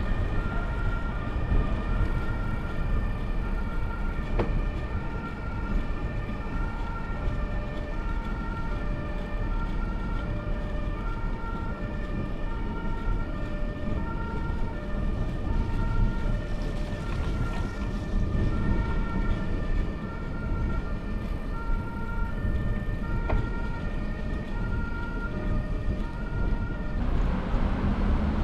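Two-tone emergency-vehicle siren alternating steadily between a high and a low note, about half a second each, over low wind and road rumble. The siren cuts off about a second before the end.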